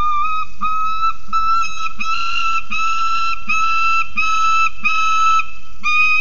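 Peregrine falcon calling: a quick run of short, level-pitched calls, about two a second, with a brief pause before the last one near the end.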